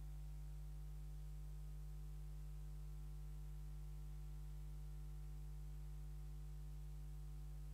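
Steady low electrical hum with a ladder of faint overtones, unchanging throughout; no other sound stands out.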